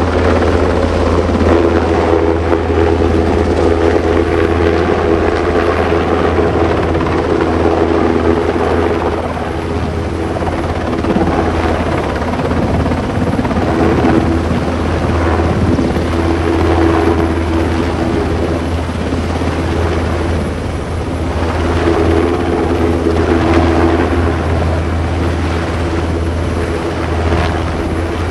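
Military transport helicopter hovering low: a steady heavy rotor beat with a turbine whine over it, easing off slightly a couple of times.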